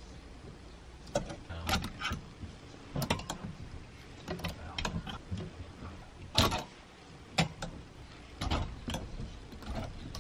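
Clothes hangers clicking and knocking against a closet rail as garments are hung and pushed along, with cloth rustling; the clicks come irregularly, the loudest about six seconds in.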